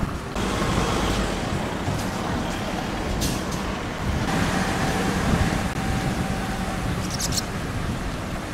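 Road traffic: vehicle engines running as they pass along the street, with a steady whine in the middle and two short hisses.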